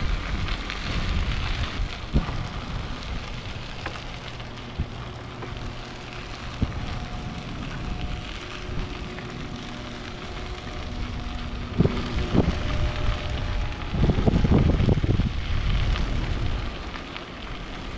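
Wind buffeting the microphone and bicycle tyres rolling on a paved trail, with scattered knocks from bumps in the path. Through the middle a faint steady hum at several pitches, from the electrical substation being passed. About fourteen seconds in a louder gust of wind.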